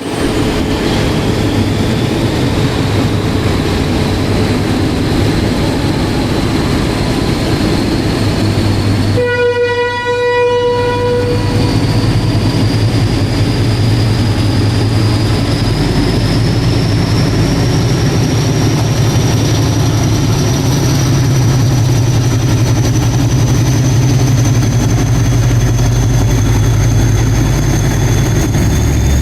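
DF7G diesel-electric shunting locomotive running steadily as it pushes a rake of passenger coaches, with a faint high whine that slowly rises in pitch. About nine seconds in, a train horn sounds once for about a second and a half.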